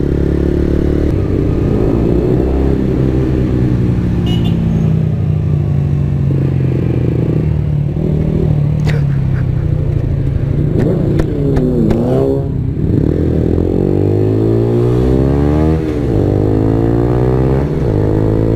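Motorcycle engine running under the rider, its pitch repeatedly climbing as it accelerates and dropping back at gear changes and when easing off in traffic.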